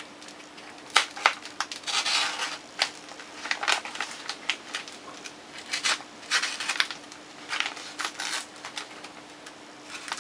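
A padded paper mailing envelope being slit open with a small knife, in irregular bursts of cutting, scraping and paper crinkling, with a few sharp clicks.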